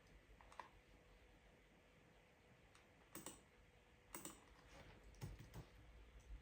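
Computer keyboard keystrokes, faint and sparse: a few separate clicks with pauses between them, the loudest coming a little past halfway.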